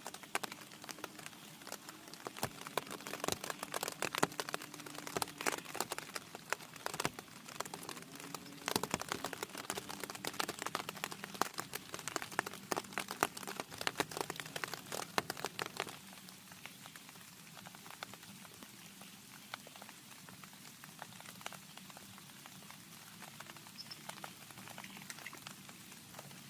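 Heavy rain, dense individual drops striking a surface, easing past the middle into a lighter, steadier hiss.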